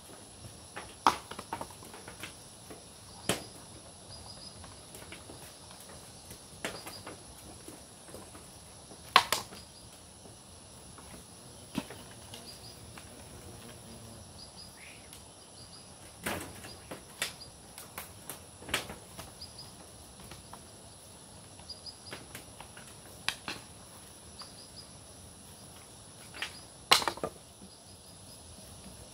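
Scattered sharp knocks and clatters of split coconut shells being handled and tossed onto a pile, the loudest about a third of the way in and near the end, over a steady high insect drone.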